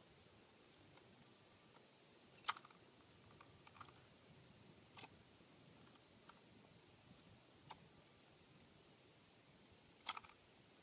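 Kel-Tec KSG 12-gauge pump shotgun being handled, its action giving about six short, sharp clicks a second or more apart, the loudest about two and a half seconds in and near the end. The gun has jammed, with a spent round not ejected and the next one stuck part way.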